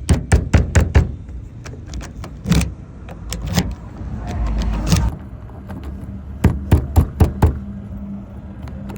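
Sharp metallic clicks and taps of a lock pick tool being worked in a car door lock cylinder, in short runs with pauses. A low steady hum comes in about halfway.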